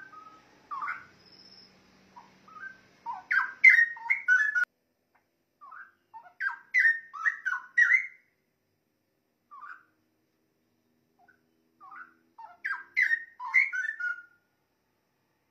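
Straw-headed bulbul (cucak rowo) singing: bursts of fast, rich whistled phrases with short pauses between them.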